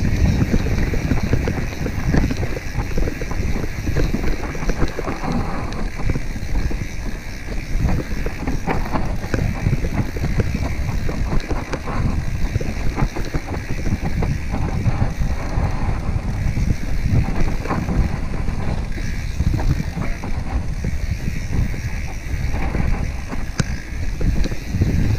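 Mountain bike rolling fast down a dirt singletrack covered in dry leaves: a continuous low rumble of tyres and rattling bike, with frequent small knocks from bumps, under wind buffeting the camera microphone.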